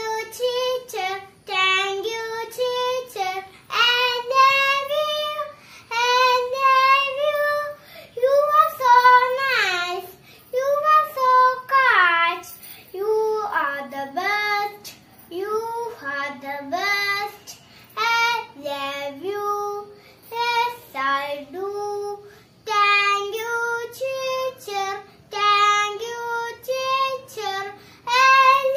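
A small child, a young girl, singing a song solo and unaccompanied, in short phrases with brief breaths between them.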